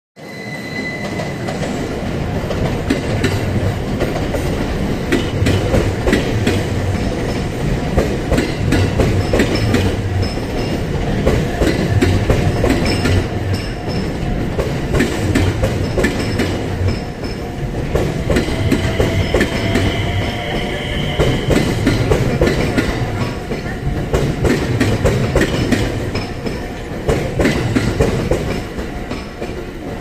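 JR West 227-series electric trains running past close by, wheels clacking steadily over the rail joints, with a brief wheel squeal a little past halfway. The level-crossing warning bell rings in the background.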